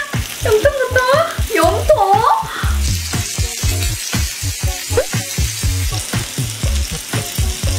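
Beef intestines (gopchang) and meat sizzling on a hot griddle, the frying hiss turning brighter about three seconds in, over background music with a steady beat.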